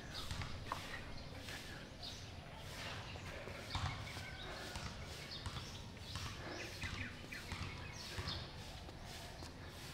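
Irregular soft thumps and footsteps of a person letting go of a pull-up beam and moving about under it, with a few faint short high chirps between them.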